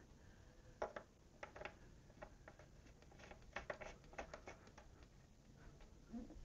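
Faint, scattered clicks and taps of hands and a hand tool working on a motorcycle's plastic bodywork and its fasteners, clustered about a second in and again around four seconds in.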